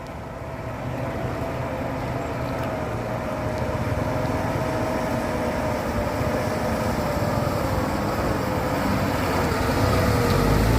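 A truck's diesel engine pulling at full throttle up a steep slope, growing steadily louder, with a whine that slowly sinks in pitch as it labours. A deeper rumble joins near the end.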